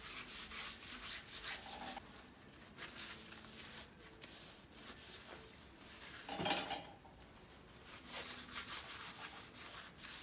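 A shop rag rubbing back and forth over the machined face of a tractor flywheel, wiping off its anti-rust coating in quick repeated strokes that ease off midway and pick up again near the end. A brief louder sound comes about six and a half seconds in.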